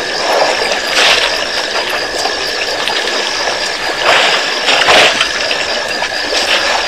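Night-time waterhole ambience with a herd of African elephants drinking at the water's edge. Under a steady hiss and a faint high hum, louder noisy splashing or blowing bursts come about a second in and around four to five seconds.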